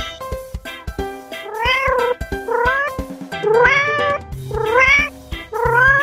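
Domestic cat meowing five times in a row, each meow rising then falling in pitch, starting about a second and a half in, over background music with a steady beat.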